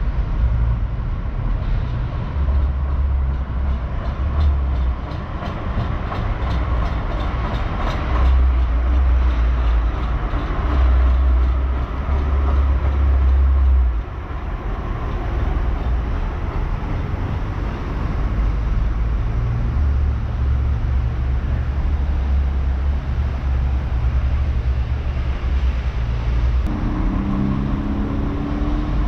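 Aeromóvel pneumatic people mover running along its elevated concrete guideway, heard over heavy low rumble of wind on the microphone. A rising hum comes in near the end.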